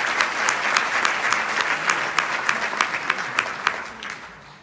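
Audience applauding, dense clapping that thins out and fades away near the end.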